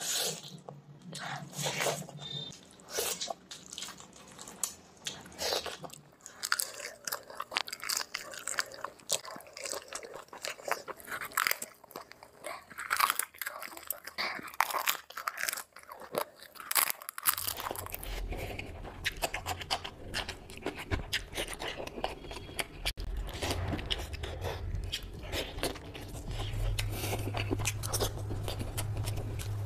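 Close-miked eating: biting, crunching and chewing of food by hand, with many wet mouth clicks. About two-thirds of the way through, a steady low hum joins beneath the chewing.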